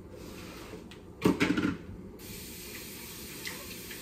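A short clatter in the kitchen about a second in, then a steady hiss of water running from a kitchen tap.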